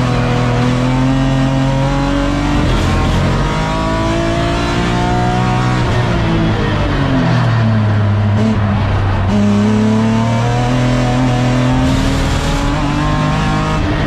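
BMW E36 M3 race car's straight-six engine at racing pace, heard from inside the stripped cockpit. Its pitch climbs through a gear change, falls away around the middle, then climbs again.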